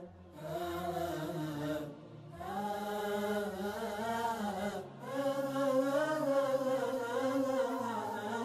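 Background vocal music: a voice chanting long, drawn-out, wavering notes in three phrases, with short breaks about two and five seconds in.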